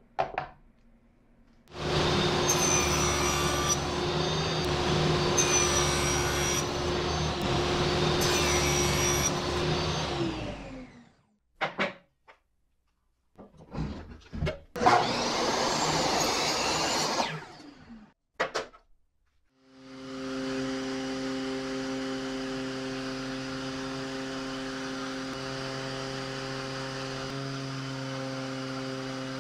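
A power tool runs for about eight seconds, its high whine dipping three times as if under load. After a pause with a few clicks, a miter saw makes a short cut of about three seconds. Then a random orbital sander starts and runs steadily while the edge of a clear acrylic plate is held against its pad.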